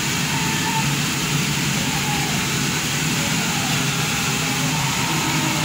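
Steam locomotive No. 251 moving slowly along the platform, giving a steady, even noise over a low hum with no distinct chuffs.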